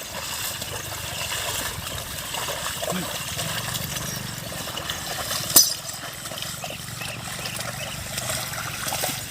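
Water and mud sloshing steadily as a bull drags a plough through a flooded paddy field, with one sharp crack about five and a half seconds in.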